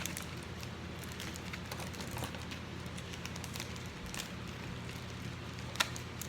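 Faint clicks and rustling from handling trading cards and their plastic holders, with one sharper click near the end, over a steady low hum.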